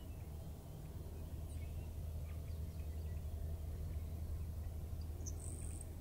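Grasshopper sparrow singing: near the end, a short high note and then a brief, very high insect-like buzz, faint over a steady low rumble.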